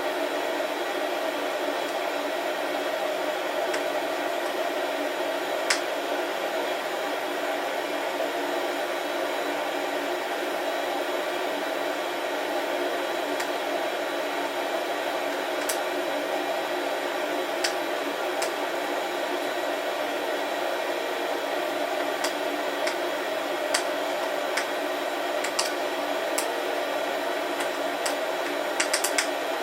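Beanbon coffee roaster running with a steady blowing hum. Scattered sharp clicks sound over it, coming more often near the end.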